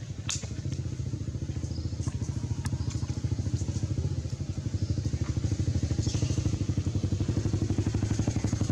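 A small engine running steadily with a fast, even pulse, and a few sharp clicks over it.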